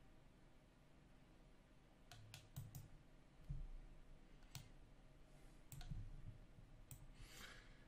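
Faint computer mouse button clicks: a quick run of four about two seconds in, then single clicks roughly a second apart.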